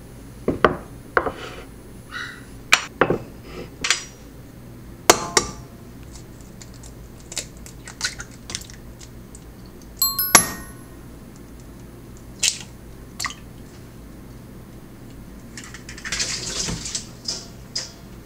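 Kitchen bowls knocking and clinking in a series of separate sharp taps, the loudest a ringing knock about ten seconds in, as a glass bowl of rice flour is handled and eggs are cracked into a mixing bowl.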